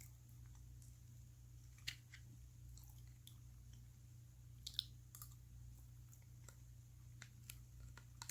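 Someone chewing soft Spam close to the microphone: scattered faint wet mouth clicks and smacks, with sharper clicks about two seconds in and again near five seconds.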